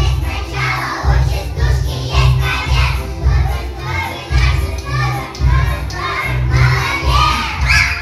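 A group of young children singing lively chastushki together in a loud, shouting style, over a recorded backing track with a steady bass beat.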